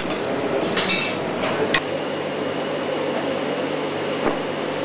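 Steady whir of a ventilation fan, with a few sharp clinks in the first two seconds. A low steady hum joins about two seconds in.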